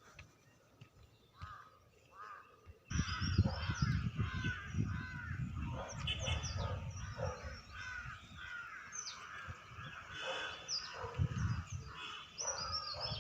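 Many birds calling and chirping at once, starting abruptly about three seconds in after a few faint calls, with a low uneven rumble underneath.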